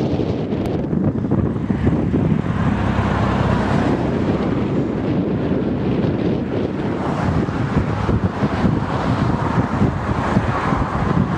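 Ford Focus RS Mk2 turbocharged five-cylinder engine idling steadily through an aftermarket exhaust, with wind buffeting the microphone.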